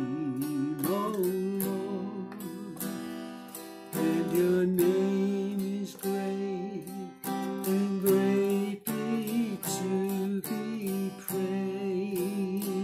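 Acoustic guitar strummed steadily while a man sings a slow worship chorus over it.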